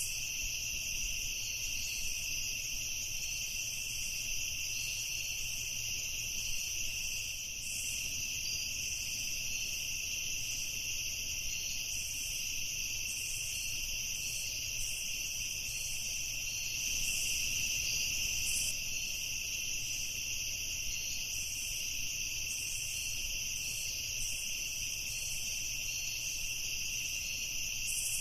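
A chorus of night insects, crickets, trilling on and on at two high pitches, steady throughout.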